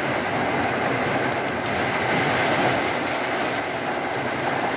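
Loud, steady rush of a storm squall: strong wind and rain falling on a wet concrete rooftop.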